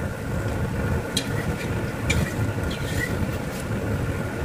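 Bakwan fritter batter frying in hot oil in a wok: steady sizzling with scattered sharp pops and crackles, over a low rumble.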